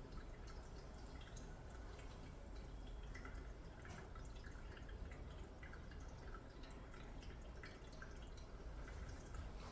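A cat lapping water: a faint, irregular run of small wet clicks and drips as its tongue flicks at the water.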